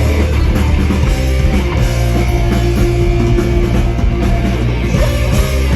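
Rock band playing loud and steady, with electric guitar, bass and drum kit.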